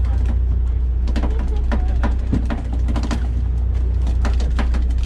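Sportfishing boat's engine running with a steady low hum, with scattered sharp knocks and clicks from the crew working on deck.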